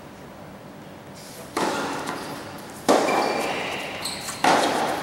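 Tennis ball struck by racquets three times, about a second and a half apart: a serve and then two rally shots, each hit ringing out with a short echo under the covered court's roof.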